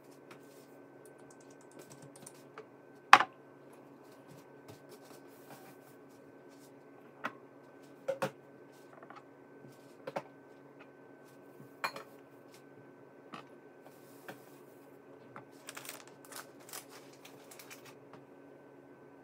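Kitchen handling sounds: scattered sharp knocks and clinks of things being picked up and set down, the loudest about three seconds in, with a stretch of rustling near the end, over a faint steady hum.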